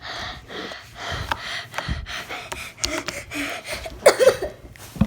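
A person breathing loudly and heavily right into the microphone, a run of audible breaths close on the mic, with a brief voiced sound about four seconds in.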